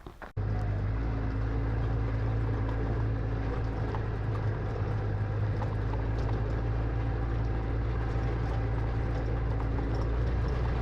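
Quad (ATV) engine running at a steady speed while riding, a constant low hum over a rough rumble. It starts abruptly just after the beginning and cuts off just before the end.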